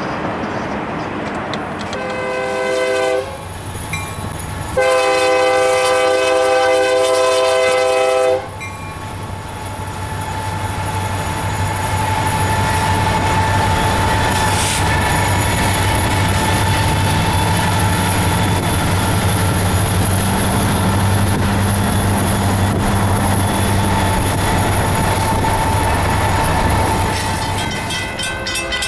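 A diesel freight locomotive's multi-note air horn sounds a short blast, then a longer, louder one of about three and a half seconds. After that comes the steady running noise of the passing freight train, with engine rumble and wheels on rail, and a horn chord starts again near the end.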